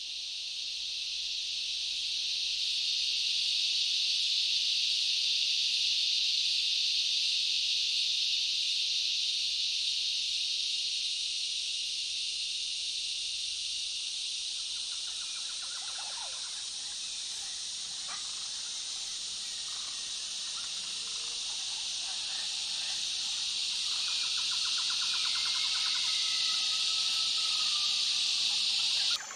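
Night-time insect chorus, a dense, continuous high-pitched shrill that fades in over the first few seconds. Faint chirps and short trills join from about halfway through.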